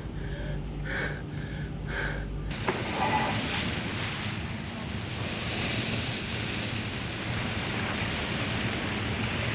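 Steady wind and sea noise, spread evenly across all pitches, that starts abruptly about two and a half seconds in. Before it, a low hum runs under short breathy gasps.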